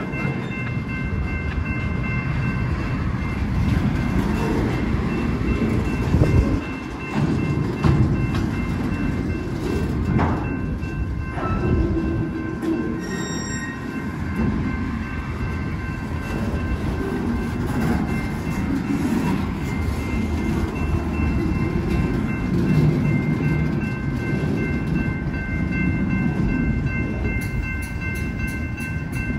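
Freight train of enclosed autorack cars rolling past close by: a steady rumble and clatter of steel wheels on rail, with a few louder knocks and bangs between about 6 and 11 seconds in. Several steady high-pitched tones run over the rumble throughout.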